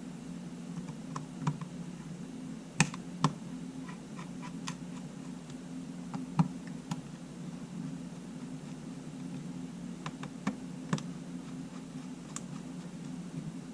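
Scattered small clicks and taps from handling the small parts and tools of a Sony A7 camera during reassembly, the sharpest about three and six seconds in, over a steady low hum.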